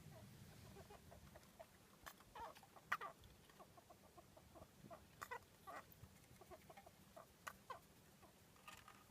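A pet mouse with a cold or respiratory infection, sneezing and chirping: a scattered run of short, faint chirps and clicks, the loudest about three seconds in. The noisy breathing is a sign of the respiratory illness at its worst.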